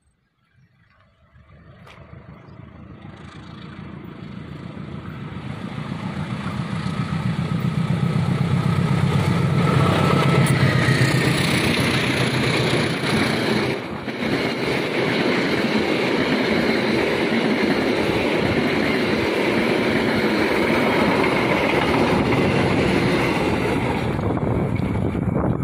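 Argo Wilis express passenger train, hauled by two diesel-electric locomotives, approaching and passing close by. The engine sound swells over the first eight seconds and peaks about ten seconds in, followed by the steady loud rumble of the coaches' wheels running over the rails.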